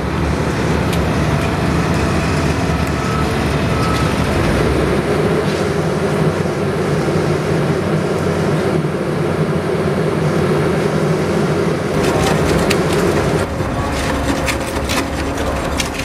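A heavy engine running steadily at a construction site, a constant low rumble with a held hum. From about twelve seconds in, a run of short sharp taps and knocks sits on top of it.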